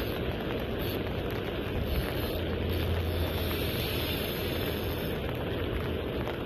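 Steady rush of wind and rain on the microphone, an even noise without any distinct events.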